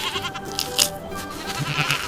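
Goat bleating over background music.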